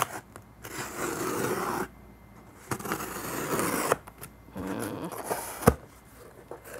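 Brown packing tape being peeled and torn from a cardboard box in two long rough pulls of about a second each, followed by cardboard handling and one sharp knock near the end.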